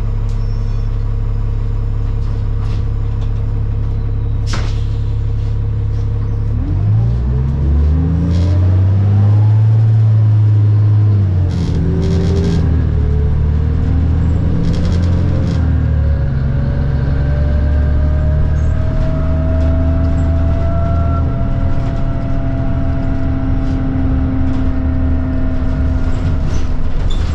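New Flyer D40LFR diesel city bus heard from inside the cabin: the engine idles steadily, then about seven seconds in it revs up as the bus pulls away. The pitch drops back at a gear change, and a rising whine follows as the bus gathers speed. A few rattles and clicks sound over the engine.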